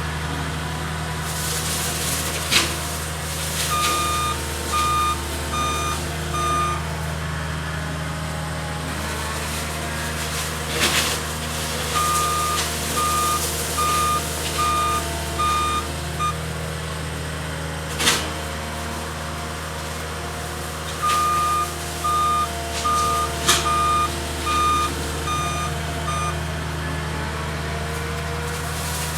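Cat 279D skid steer's diesel engine running steadily while its reverse alarm beeps in three runs of four to seven beeps, about one a second, as the machine backs up. A few sharp knocks stand out over the engine.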